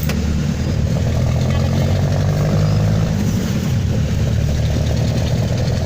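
Jeepney's diesel engine running steadily, heard from inside the moving passenger cabin as a low drone.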